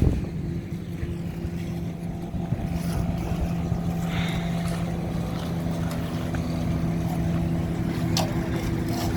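Transit mixer's diesel engine running steadily at a concrete pour, its note shifting slightly partway through. A short knock about eight seconds in.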